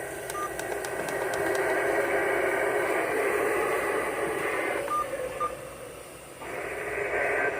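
Radio static hissing through a narrow, telephone-like band, with a few short single-pitch beeps. The hiss dips briefly about six seconds in, then returns.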